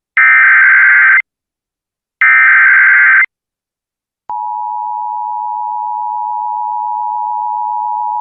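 Emergency Alert System SAME header: two blasts of the shrill warbling data screech, each about a second long with a second's gap, the coded header announcing an incoming warning. About four seconds in, the steady two-tone EAS attention signal starts and holds, the alarm tone that comes before the spoken alert.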